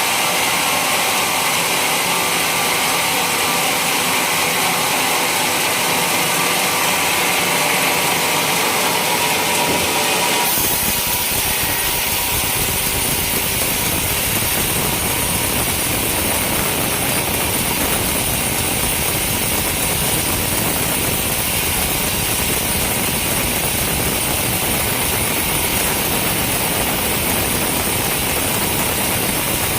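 Homemade sawmill running continuously, sawing through a coconut palm trunk. About ten seconds in, the sound changes abruptly from a higher-pitched sawing noise to a deeper, fuller machine running.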